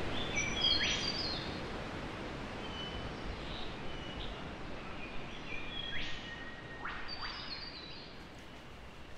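Birds chirping in short high notes and quick sweeping calls over a steady outdoor hiss. The chirps come in clusters: near the start, again around three to four seconds in, and from about six to eight seconds in.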